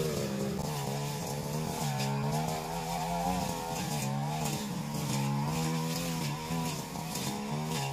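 Backpack brush cutter engine running at high speed while cutting weeds. Its pitch dips and rises every second or so as the cutting head swings through the growth and takes on load.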